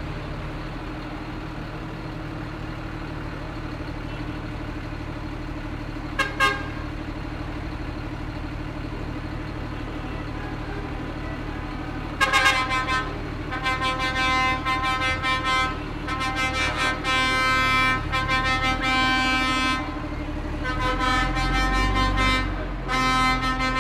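Heavy diesel parade vehicles idling with a steady low rumble. A vehicle horn gives one short blast about six seconds in, then sounds again and again in long, loud blasts from about halfway through.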